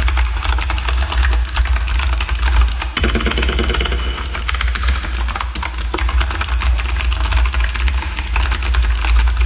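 Rapid typing on a mechanical keyboard with clicky Outemu blue switches, a dense run of sharp key clicks, over a steady low hum.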